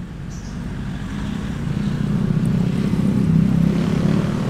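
Engine of a passing road vehicle, a low rumble that builds to its loudest about three seconds in and then eases off.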